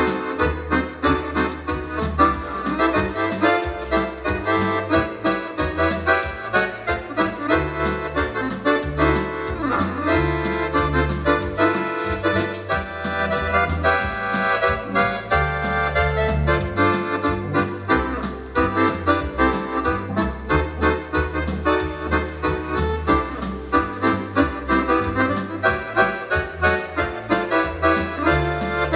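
Wersi electronic organ played on two manuals and pedals: chords and melody over a moving pedal bass line, with a steady beat.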